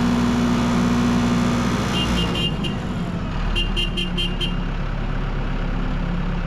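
Engine running steadily, its note dropping about two seconds in, with two quick runs of short high-pitched beeps, about four and then five in a row.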